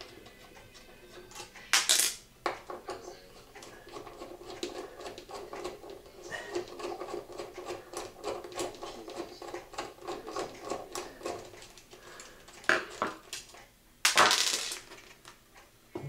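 Small metallic clicks and clinks as an old wall switch, its mounting screws just undone, is handled and pulled out of its electrical box. A few sharp knocks stand out, the loudest near the end.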